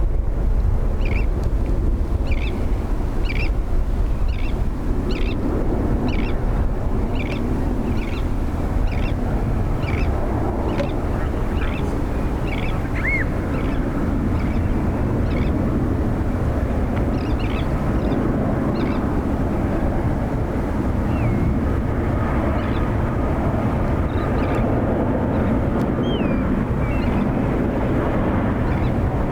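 Steady roar of distant jet aircraft at an airport. Over it a small bird chirps repeatedly, about three chirps every two seconds, through the first half, with a few scattered gliding chirps later.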